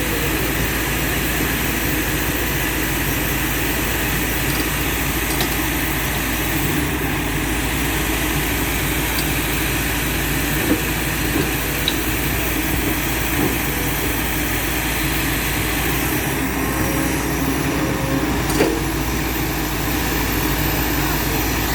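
Heavy excavator diesel engine running steadily, with a few brief knocks.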